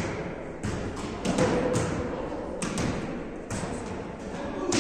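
Volleyballs being hit by hands and forearms in passing and setting: several sharp slaps at irregular intervals, about one a second, echoing in a large gym hall.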